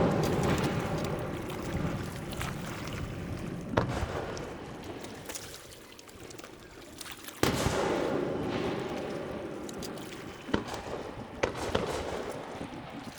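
Fireworks shells bursting overhead, a series of booms a few seconds apart. Each boom is followed by a long rolling rumble that slowly fades, with the biggest burst about seven seconds in.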